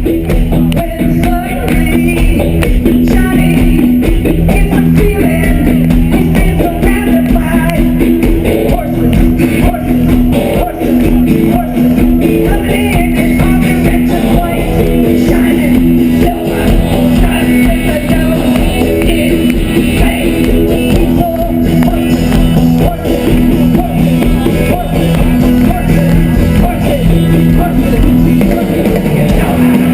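Loud live rock music with electric guitars, drums and singing, heard through a small camera microphone at close range; the sound is dense and a little distorted.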